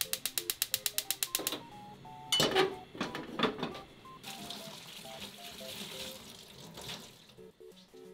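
Gas stove's electric igniter clicking rapidly, about ten clicks a second for a second and a half, as the burner lights. A couple of metallic clanks follow as an aluminium saucepan is set on the burner grate, then a soft steady hiss, over faint background music.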